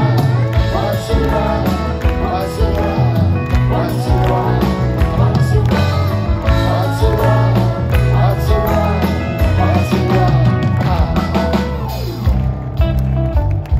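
Live band playing the instrumental close of a pop-rock song, with drums, bass guitar, electric guitar and keyboards, at full volume. The cymbals and high end fall away near the end.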